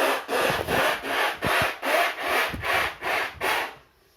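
A man's vocal mimicry of a hand saw cutting wood: rasping back-and-forth strokes, about two and a half a second, stopping shortly before the end.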